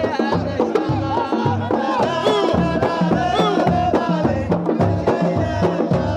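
Samri, Gulf Arabic folk music: voices singing a wavering melody over drums beating a steady, even rhythm.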